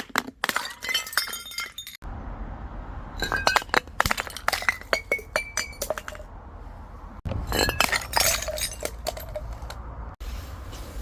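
Glass bottles being crushed: clusters of sharp cracks and clinks with ringing glass tones, in three bursts, each section ending in an abrupt cut.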